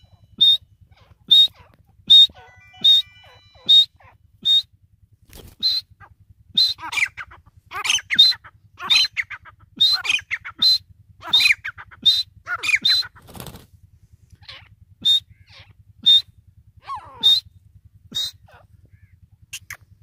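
Grey francolin calling: a long run of short, sharp, high-pitched call notes, roughly one a second. They become faster and fuller in the middle with extra lower, grating notes, then thin out again toward the end.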